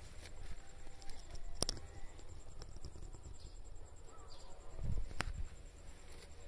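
Outdoor background with a low rumble of wind and handling on a phone microphone, a few sharp handling clicks, and a soft low thump about five seconds in.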